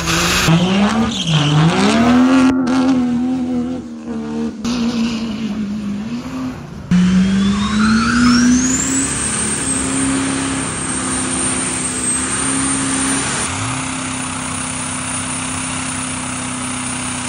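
Diesel pickup truck doing a burnout: the engine revs up and down, then is held at high revs for several seconds. A high whistle rises over it and then holds.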